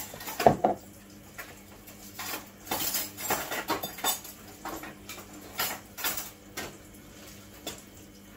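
Kitchen utensils and containers clinking and clattering on a counter, with a sharp knock about half a second in and bunches of clatter around the third and sixth seconds.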